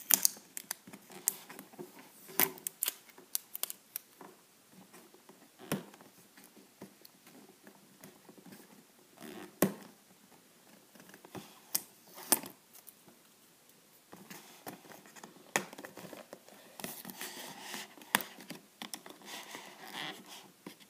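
Fingers and fingernails picking and scratching at a cardboard box's tab and seal, with scattered clicks and taps from handling the box, then more steady scraping in the last few seconds.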